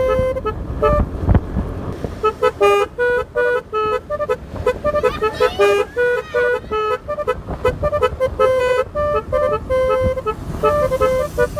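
Basuri keong telolet horn playing a fast tune of short, stepped horn notes, with a few quick pitch glides about five seconds in.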